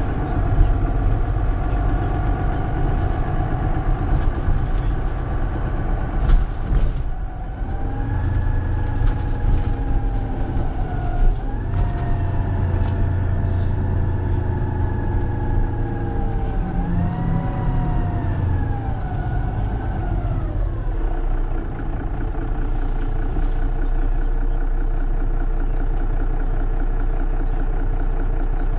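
Mercedes-Benz Citaro Facelift city bus heard from on board: its diesel engine and automatic gearbox pulling away and accelerating. About seven seconds in, a whine rises in pitch and drops back at two gear changes. It then eases off and settles into a steady low running sound for the last few seconds.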